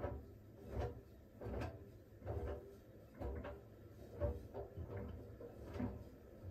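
Siemens iQ700 front-loading washing machine's drum turning slowly in its smartFinish steam stage, the damp shirts tumbling inside with a regular thump a little more often than once a second.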